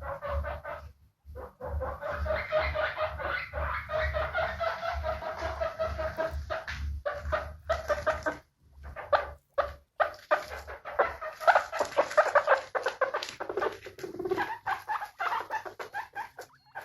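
Guinea pigs calling in a fast, continuous run of short squeaks and chirps, with brief pauses about a second in and about halfway through.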